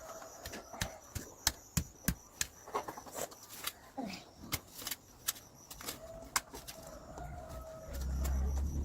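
Irregular sharp clicks and knocks, several a second, with chickens clucking faintly. Near the end a low motor-vehicle engine rumble rises and grows louder.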